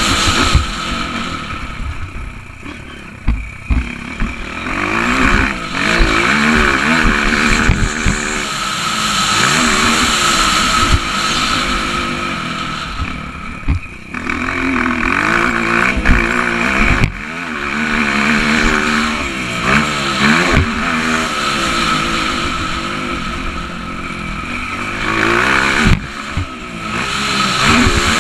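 Honda CRF230 dirt bike's single-cylinder four-stroke engine, heard from onboard, revving up and down as the rider opens and shuts the throttle around a motocross track. It comes with wind rush and scattered knocks from the bike hitting the track.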